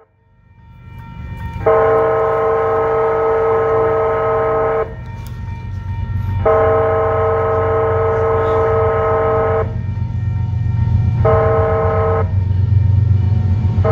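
Freight locomotive's multi-chime air horn sounding the grade-crossing signal: two long blasts, a short one, then the final long blast starting near the end. Under it, the low rumble of the approaching intermodal train grows steadily louder.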